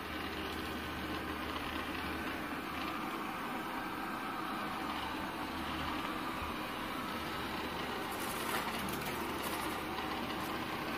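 Coredy robot vacuum running as it cleans, a steady motor and suction hum with its side brushes spinning, with some light clicking in the last few seconds.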